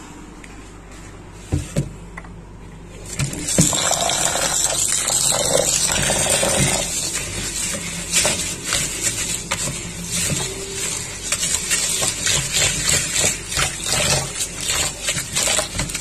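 Tap water running into a plastic bowl of rice in a steel sink, with a hand stirring the rice to wash it. The water comes on about three seconds in, after a couple of knocks.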